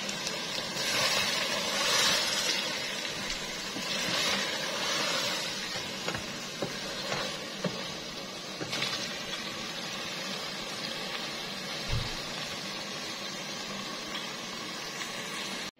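Thick beetroot-and-mutton curry sizzling in a steel pot as it is stirred with a wooden spatula, a steady hiss that swells twice in the first five seconds. It is in its final frying stage: the water has dried off and the oil has separated from the masala.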